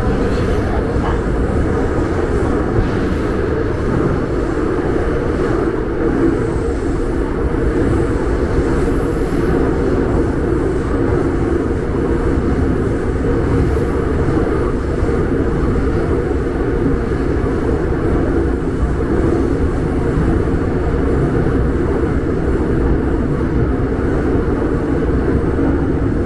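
Steady rumble of a Seoul Subway Line 5 train running, unchanging in level throughout.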